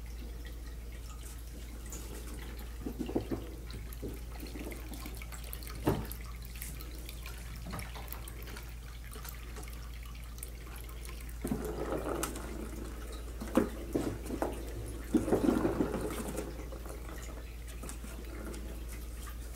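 Kittens playing with a plastic ball-track scratcher toy: scattered light knocks and rattles, and twice in the second half a longer stretch of scuffing and rattling, over a steady low hum.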